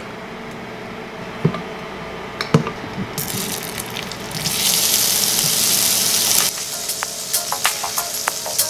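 Butter sizzling in a stainless steel pan: the hiss starts about three seconds in, grows louder, and cuts off suddenly. It is followed by scattered light taps and clicks.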